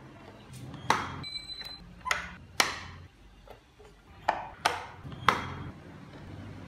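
Sharp wooden clicks and knocks, about six of them, as the small carved wooden doors and rear hatch of a wooden model car are opened and pushed shut.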